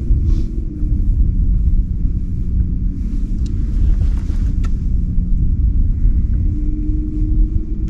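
Steady low rumble of a running motor, with a faint hum that rises slightly in pitch near the end.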